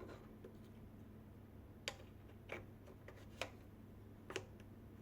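A few faint, irregular clicks and light taps from the welder's open wire-feed compartment being handled, over a low steady hum.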